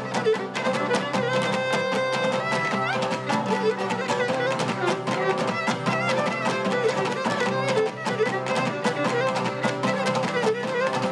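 Live Cretan folk dance music: a bowed lyra carries a fast, steady-pulsed dance tune over strummed lute accompaniment, with no singing.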